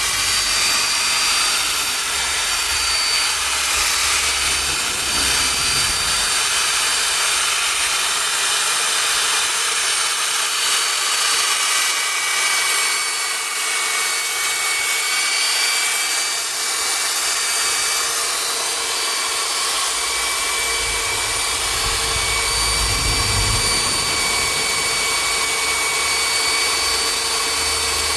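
Handheld electric power tool, a machine polisher or sander, running steadily on car paintwork with a constant high-pitched whine.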